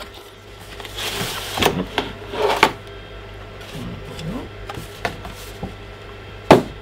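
Cardboard packaging being handled: the inner tray slides out of the box with rustling and a few clicks. Near the end comes a single sharp knock as the cardboard box is set down on the tabletop.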